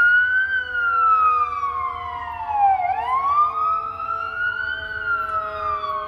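Emergency vehicle siren wailing in slow rising and falling sweeps, about one rise and fall every four to five seconds.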